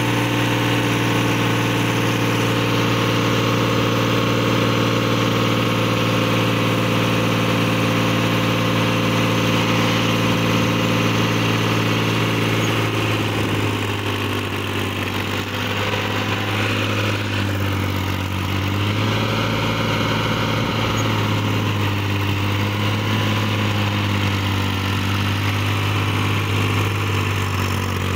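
New Holland TT55 tractor's diesel engine running steadily as the tractor works to pull itself out of deep paddy-field mud. From about halfway through, the engine note shifts and wavers.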